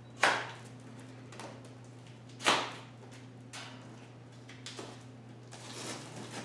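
Plastic packing straps around a cardboard box being cut and pulled free: two sharp snaps, about a quarter second and two and a half seconds in, with lighter clicks and rustles between. A steady low hum sits underneath.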